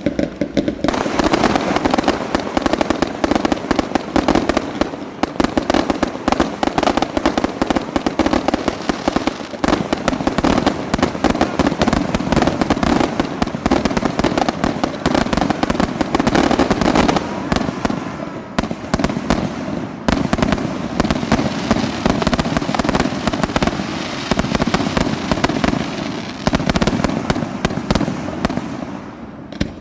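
Fireworks display: a dense, continuous barrage of rapid bangs and crackles with no pause, stopping abruptly near the end.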